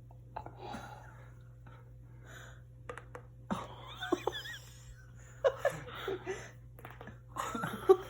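Neck joints cracking: a few short sharp pops about three seconds in. Breathy gasps and short vocal noises follow.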